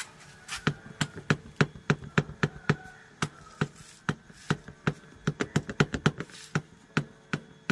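A loose motorcycle seat knocking against its mounting in a rapid, uneven run of short knocks, about three a second. The play comes from the worn rubber cushions under the seat.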